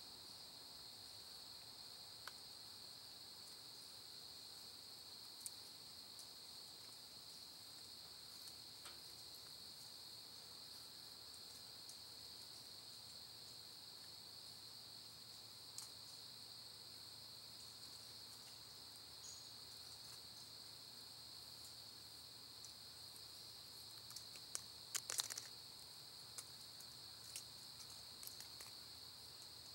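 Steady, high-pitched insect chorus in the woods. A few faint clicks are scattered through it, with a short cluster of louder knocks about 25 seconds in as the hunter handles gear up in the metal tree stand.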